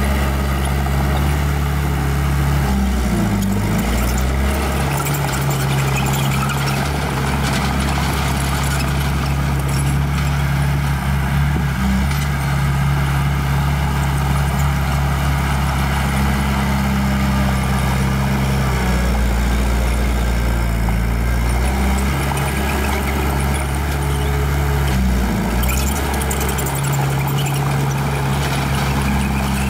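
Heavy diesel engine of earthmoving machinery running steadily. Its pitch dips and recovers briefly about three seconds in and again near twenty-five seconds.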